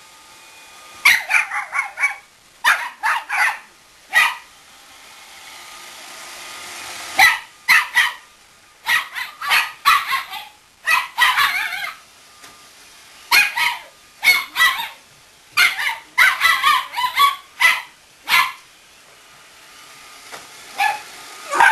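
Small Chinese Crested dog yapping at a robot vacuum in volleys of short, high-pitched barks, two to five in quick succession, with pauses between them. A steady whir from the running Roomba 560 fills the gaps between volleys.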